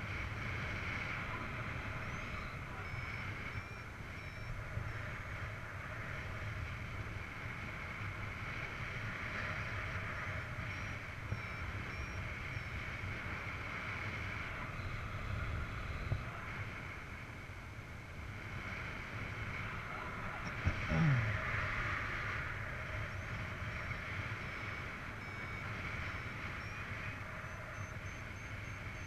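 Airflow rushing over a paraglider's on-board camera in flight, a steady wind noise with a low rumble. A short, louder bump comes about two-thirds of the way in.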